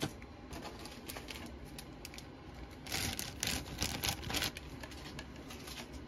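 Plastic model-kit parts trees (chrome-plated sprues) being handled and laid on a cutting mat: light plastic clicks and rattles, with a busier, louder run of clicking and rustle about three to four and a half seconds in.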